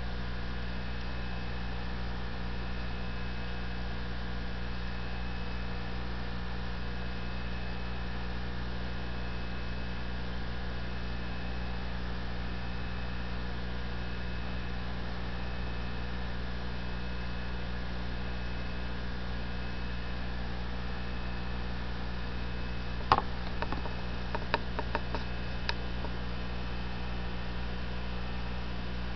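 Steady electrical mains hum, even and unchanging, with a short run of sharp clicks about three-quarters of the way through.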